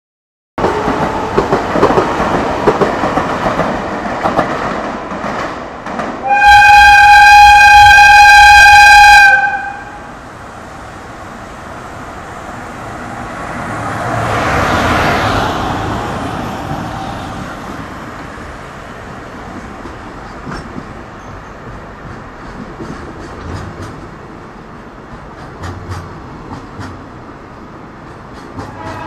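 Trains passing at close range. First a train runs by loudly, then a train horn sounds one steady blast of about three seconds. Then an EF210 electric locomotive passes with a swell of noise, and its container wagons roll by with regular clicks of wheels over rail joints.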